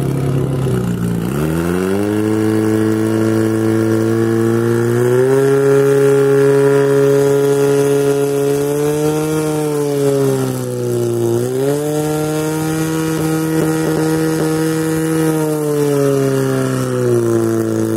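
Portable fire pump's engine revving up about a second in and then running at high speed as it drives water out through the hose lines to the nozzles. Its pitch sags briefly once around the middle and drops again near the end.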